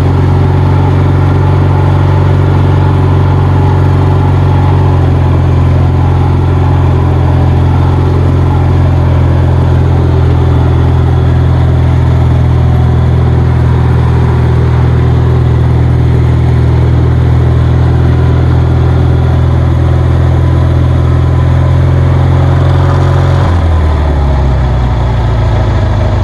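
Kohler 20 HP Magnum twin-cylinder engine on a riding mower running steadily at speed. About 23 seconds in, its pitch drops as the engine slows.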